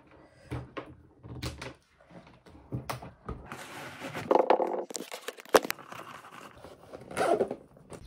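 Objects being handled: a string of light knocks and clicks, with a longer rustling or scraping noise around the middle and another near the end.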